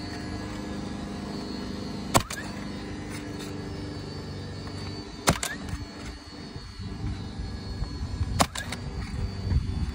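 Three sharp strikes about three seconds apart as a replacement asphalt shingle is nailed in, over a steady low hum.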